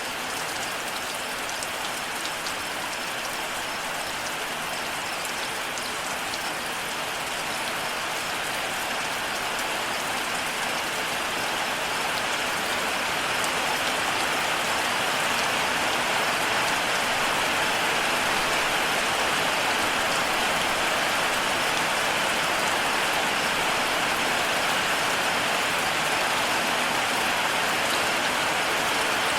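Steady rain falling, a dense hiss of drops pattering on a surface, growing a little louder about halfway through and then holding steady.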